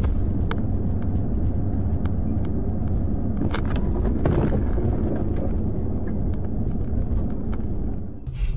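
Car driving at highway speed, heard from inside the cabin: a steady low rumble of road and engine noise, with a few light knocks scattered through it.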